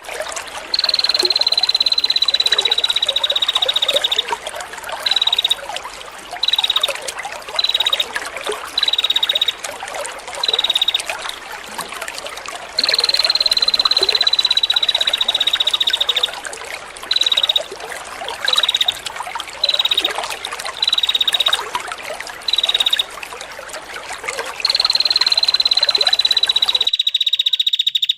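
Prenjak lure calls: long buzzing trills of about three seconds, falling slightly in pitch, alternate with runs of short buzzy notes. A steady trickle of running water goes on underneath. All sound cuts out briefly near the end.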